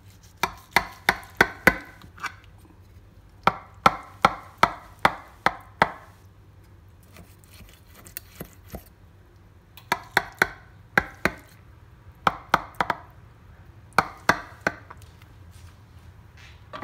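Kitchen knife chopping down through a baked lasagna in a baking dish, its blade tapping the bottom of the dish in quick runs of sharp clicks, about four a second, with short pauses between runs.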